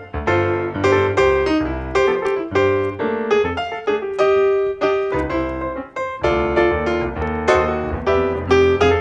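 Background piano music: a melody of struck notes that ring and fade, over low bass notes.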